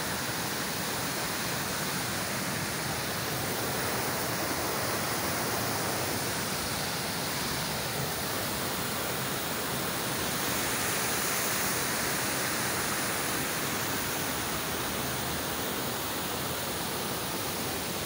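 Waterfall cascading over rocks into a pool: a steady rush of falling, churning water.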